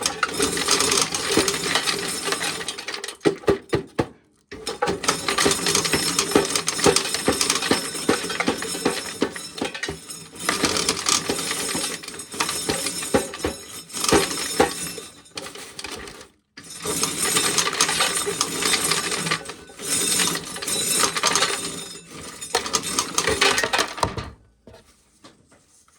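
Corn sheller stripping kernels from ears of corn, a dense rattling clatter of kernels clinking, in three long runs with short breaks about 4 and 16 seconds in, stopping a couple of seconds before the end. The corn is cold and damp, and the sheller is struggling to get the kernels off.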